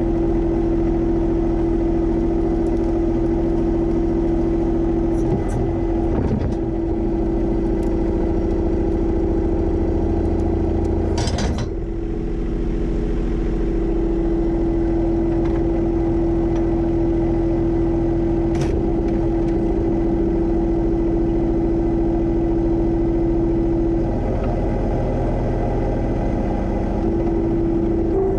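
John Deere 1025R sub-compact tractor's three-cylinder diesel engine running at a steady speed, with a few short knocks or clanks.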